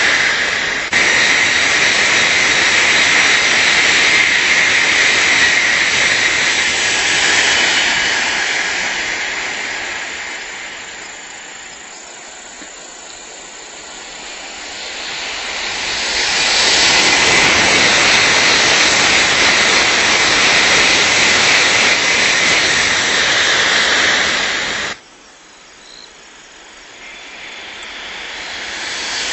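Tokaido Shinkansen high-speed trains passing at speed: a loud rushing noise with a high steady tone at first, which fades away and then swells again as another train goes by. It cuts off suddenly near the end, and a further train's rush starts to build.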